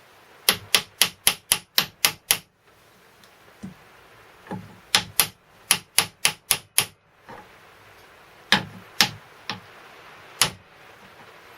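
Hammer blows on a drift, driving the rear crankshaft ball bearing into the housing of a 1935 Stuart Turner N two-stroke marine engine. Two quick runs of about eight sharp metallic blows, about four a second, then four slower single blows. The bearing is a tight push fit.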